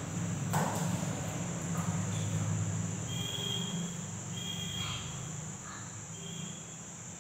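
Background room tone with no speech: a steady high-pitched whine and a low rough hum, a brief rustle about half a second in, and a few faint short tones in the second half.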